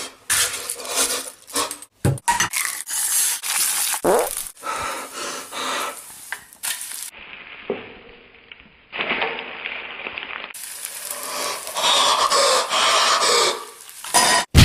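Non-stick frying pan scraping and knocking on the gas hob's grates while fried eggs sizzle, in short bursts that start and stop abruptly, with a few sharp knocks.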